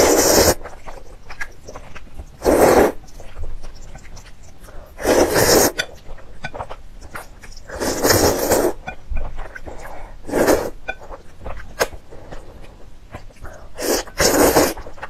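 A person slurping noodles in loud bursts, about six in all, each about half a second long and two to three seconds apart, with small mouth and chewing clicks between.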